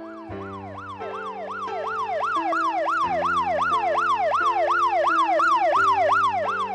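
Emergency vehicle siren wailing in a fast yelp, its pitch sweeping up and down about three times a second and growing louder, over held chords from a piano-like keyboard.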